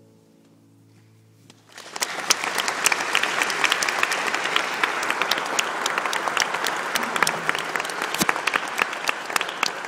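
The last notes of the song ring out and fade, then a little under two seconds in the audience starts applauding, a steady clapping with single sharp claps standing out.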